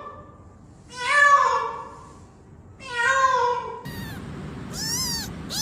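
Kitten meowing three times, roughly every two seconds; the last meow is short.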